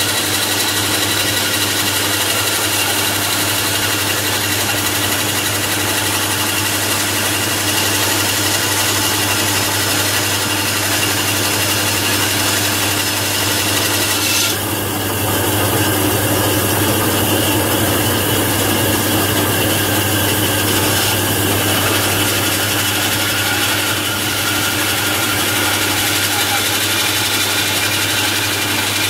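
Vintage English-made bandsaw from the 1920s or 30s running, with a steady motor hum under a constant hiss. About halfway through the sound changes for several seconds: the hiss thins and a rougher, lower noise comes in.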